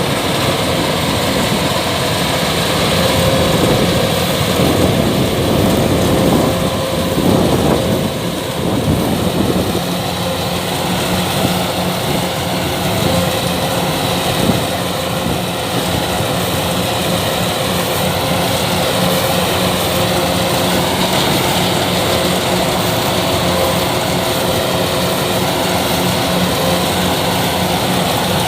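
Kubota DC-105X combine harvester running, a steady, loud drone of its engine and machinery that wavers a little in the first ten seconds.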